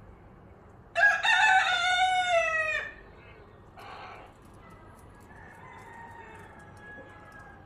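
A rooster crowing once, a single loud call of about two seconds that starts about a second in and trails down in pitch at the end.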